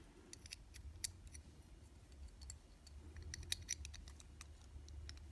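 Faint, scattered light clicks and ticks of small die-cast toy car parts (wheels, axles, body) being handled and fitted together, busier about three seconds in.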